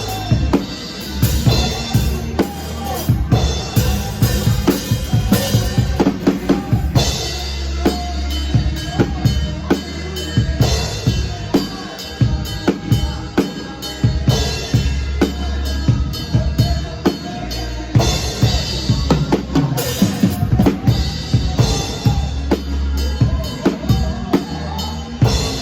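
Live band music with a drum kit to the fore: a steady beat of bass drum and snare hits over a strong bass line.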